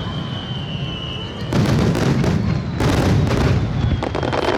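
Fireworks display: a high whistle, falling slightly in pitch, over a rumble of distant bursts. About a second and a half in, a dense barrage of bangs and crackles starts.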